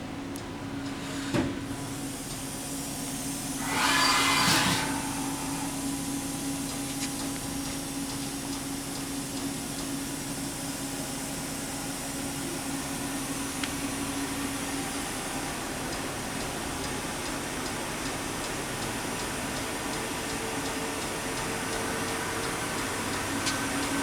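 Haas HS-1 horizontal machining center standing idle under power, with a steady hum and fan noise. There is a sharp click about a second in, and a short loud hiss of air about four seconds in.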